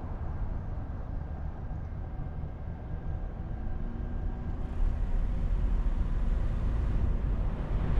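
Car driving on a city street: a steady low rumble of engine and road noise, growing louder about five seconds in.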